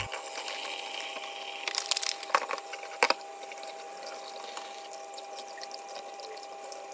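Water running steadily, with a few sharp clicks and knocks about two and three seconds in.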